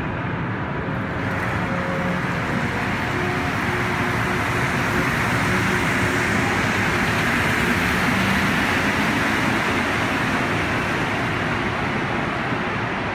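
Montreal Metro MR-73 rubber-tyred train running past the platform: a steady rumble and hiss that swells to its loudest midway, with a few faint motor tones, then eases a little near the end.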